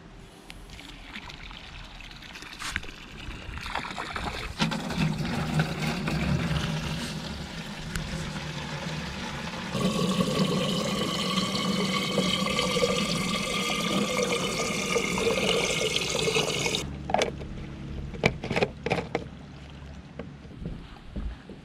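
Water from a hose pouring into a plastic jerrycan, the splashing growing louder as the flow opens up and stopping abruptly about seventeen seconds in. A few sharp clicks and knocks follow as the can's screw cap is handled and closed.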